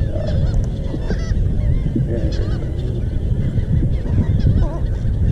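Many birds calling at once, a constant chatter of short rising-and-falling calls, over a steady rumble of wind on the microphone.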